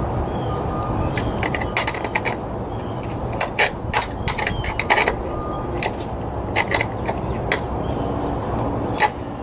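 Ratchet wrench clicking in short irregular runs while the nut holding an ignition coil is tightened on its stud, with small metallic clicks of the tool over a steady background hum.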